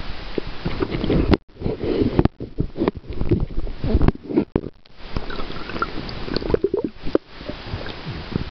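Water gurgling and sloshing against a camera held underwater, with irregular knocks and a few sudden brief drop-outs.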